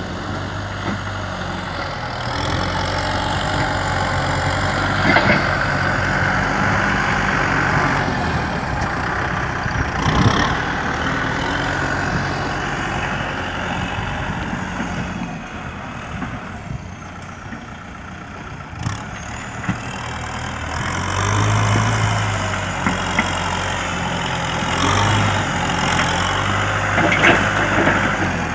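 Kubota M-series tractor's diesel engine running under load while its front dozer blade pushes soil, the engine note swelling and easing as the load changes. A few short knocks sound over it.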